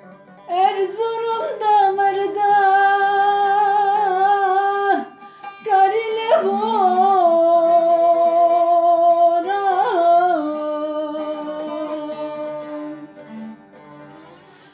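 Turkish folk song: a solo voice singing long, wavering held notes over a plucked string accompaniment. The voice breaks off briefly partway through, and the last couple of seconds are accompaniment only.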